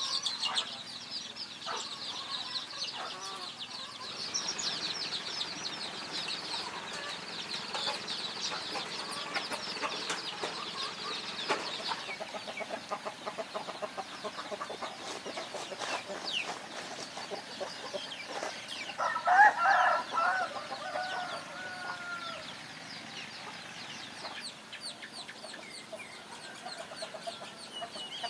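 Chickens clucking among busy high chirping of small birds, with a rooster crowing once about two-thirds of the way through, the loudest sound here.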